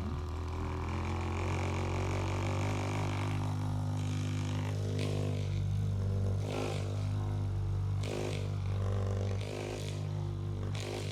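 Electric massage device running with a steady motor hum. From about halfway in, a brighter rasp comes every second or two as it is worked over the body.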